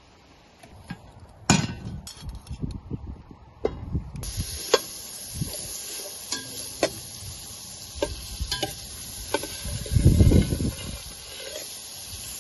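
Butter sizzling and spitting as it melts in a hot stainless steel pot, a steady hiss with sharp pops and clicks, starting about four seconds in. Before it, a few knocks of a knife and hands on a wooden chopping board; a loud low rumble about ten seconds in.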